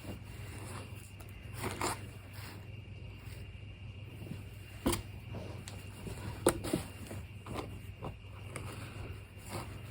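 Handling and unpacking items from a box: scattered rustles, soft scrapes and a few light knocks, over a low steady background hum.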